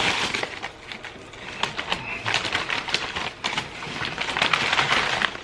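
Paper and wrapper packaging rustling and crinkling, a dense run of small crackles that grows busier near the end.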